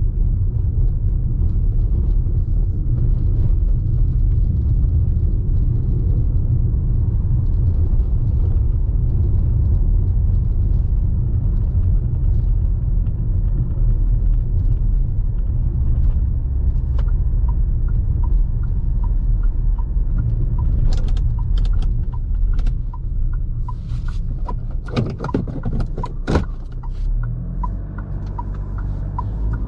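Fiat Toro Volcano's 2.0 diesel engine and road noise, a steady low rumble heard from inside the cabin. About two-thirds of the way through, the turn-signal indicator starts ticking evenly, about one and a half ticks a second, with a few sharp knocks along with it.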